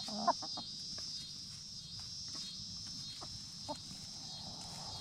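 Hens clucking a few short notes at the start, with another brief cluck and a few soft clicks later, over a steady high chirring of crickets or other insects.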